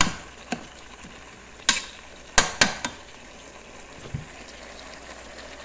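A metal spoon stirring a sautéing fish stew in an aluminium pot, knocking against the pot several times, with a cluster of three knocks near the middle. A steady sizzle of the stew cooking runs underneath.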